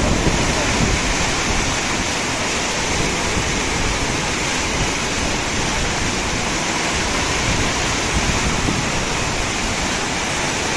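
Muddy floodwater of a river in spate rushing and churning in standing waves past a bridge: a loud, steady rush of water.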